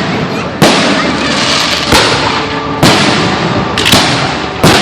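Fireworks display: aerial shells bursting in a steady run of five loud bangs about a second apart, each followed by a fading rumble and crackle.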